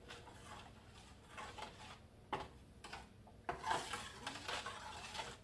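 Spoon clinking and scraping in a cooking pan while stirring: a few scattered knocks at first, then busier, louder stirring from about three and a half seconds in.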